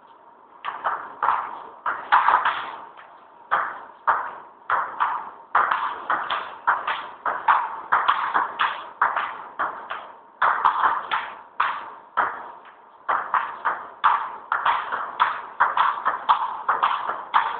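Table tennis rally: the celluloid ball clicking off paddles and table in a quick run of sharp taps, about two to three a second, starting about half a second in.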